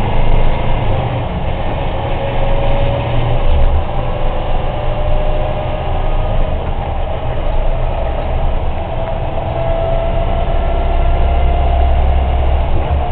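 Military truck's engine running with road noise, heard inside the cab while driving: a steady low rumble with a faint whine that climbs slightly in pitch in the second half.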